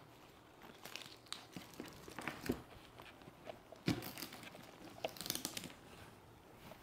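Faint, irregular crinkling and rustling of gift wrap and packaging being handled, with a few small taps. It is busiest about five seconds in.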